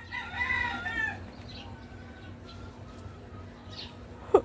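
A rooster crows once, a wavering call lasting about a second. A cluster of short, sharp sounds follows near the end.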